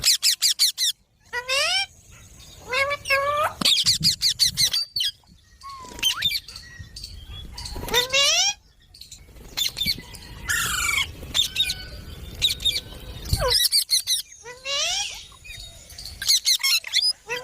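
Pet parrot calling: runs of quick, rising whistled chirps broken by a few harsh squawks, in short series with brief pauses between them.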